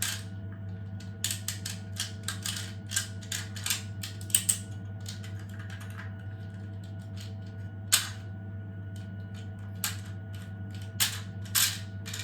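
Plastic clicking of a 3D-printed wind-up toy mechanism being wound and handled: a quick run of irregular clicks over the first few seconds, then a few single clicks, over a steady low hum.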